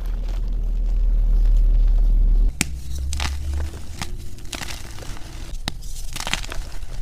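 Hands squeezing soft, powdery gym chalk, with a deep rumble under it. Then blocks of gym chalk are snapped and crumbled by hand: a series of sharp cracks with soft crumbly crunching between them.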